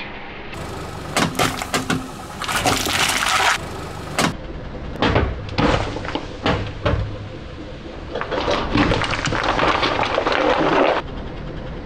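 Car tyre rolling over full aluminium Coca-Cola cans, crushing them with a run of sharp cracks and pops. Twice there is a longer hissing spray of fizzy soda as cans burst.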